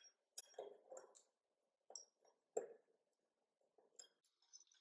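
Faint metal clinks and taps of a screw being fitted by hand into a chair's steel mounting plate, with one sharper knock about two and a half seconds in.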